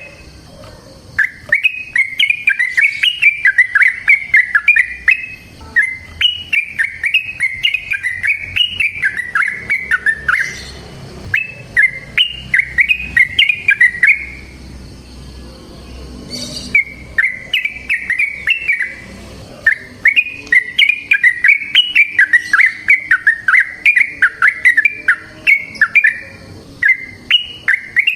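Yellow-vented bulbul (trucukan) singing its long, bubbling song in runs of quick chirping notes that rise and fall, broken by a few short pauses.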